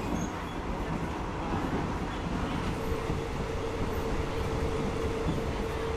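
Passenger train carriage running along the track, heard from inside: a steady rumble and rattle of the wheels and carriage. A steady high hum joins in about halfway through.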